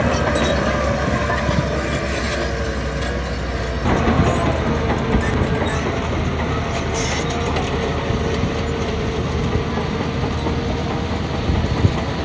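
Bulldozer's diesel engine running under load, with the steel crawler tracks clanking and squealing.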